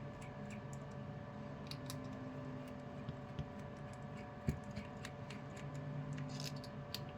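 Faint, irregular small clicks and ticks of a plastic hobby servo case being unscrewed and opened, with one sharper click about four and a half seconds in, over a faint steady hum.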